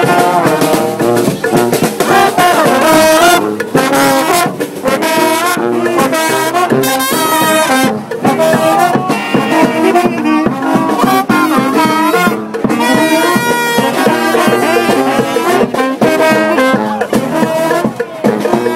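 Marching brass band playing a tune: trombones and trumpets over drums.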